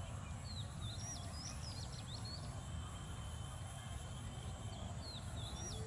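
A songbird sings a quick phrase of whistled notes that rise and fall, then starts the same phrase again near the end, over a steady low rumble. A long, thin, steady high whistle is heard in between.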